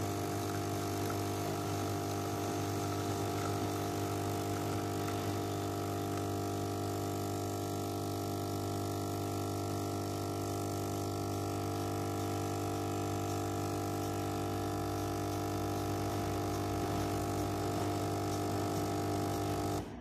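De'Longhi pump espresso machine's vibration pump buzzing steadily as it pushes water through the portafilter to pull an espresso shot. It cuts off suddenly near the end, as the machine finishes the shot.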